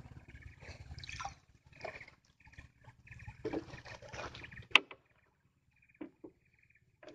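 Paddle strokes from a small boat, the blade dipping and splashing in calm water several times over the first four seconds or so. About five seconds in comes one sharp, loud knock, then a few soft knocks.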